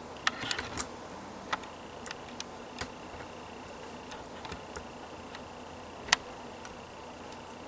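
A string of irregular sharp clicks and taps, a cluster in the first second and the loudest about six seconds in, over a faint steady high-pitched whine.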